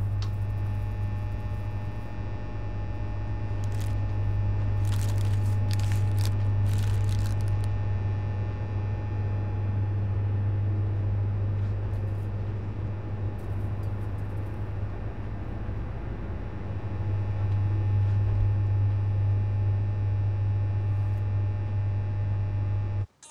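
Loud, steady low electrical hum of shop refrigerators and strip lighting, with a thin whine of higher tones above it. A few brief clicks and rustles break through it.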